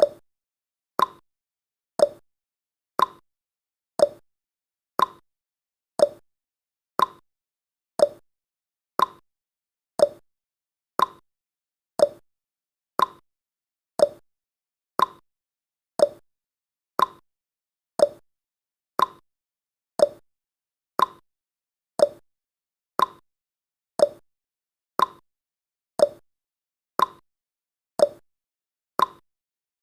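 Countdown timer's ticking sound effect: one short, sharp tick every second, steady and evenly spaced.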